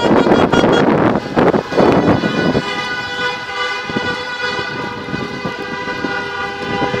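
Loud rushing noise on the microphone for about the first two and a half seconds. Then a steady, held horn tone with several pitches layered together sets in and carries on, typical of car horns held down on a busy street.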